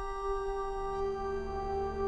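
Background music: one sustained ringing tone with many overtones, held steady.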